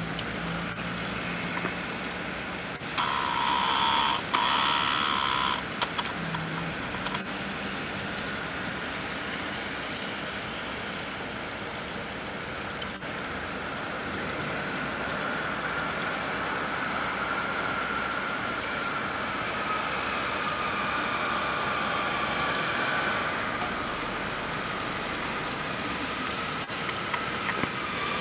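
Steady hiss and patter of wet, slushy snow falling. About three seconds in, a louder tone-like sound comes in two parts with a short break, lasting about three seconds.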